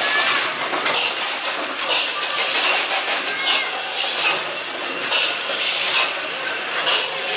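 Replica 'Puffing Devil' steam road locomotive chugging along, its exhaust puffing and hissing from the chimney. A quick run of puffs in the middle gives way to slower ones about a second apart.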